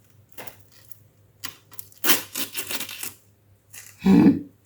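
Clicks and scraping from hand work on a ceramic tile floor: hard plastic and ceramic pieces clinking and rubbing. There is a single dull thump about four seconds in.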